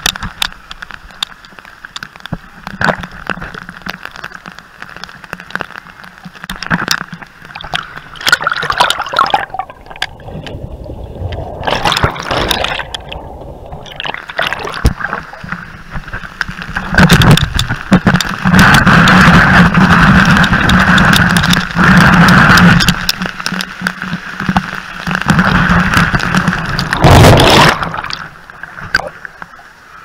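Falling waterfall water splashing directly onto the camera, heard close up as a noisy wash with many small droplet hits. It comes in surges and is loudest for about ten seconds in the second half.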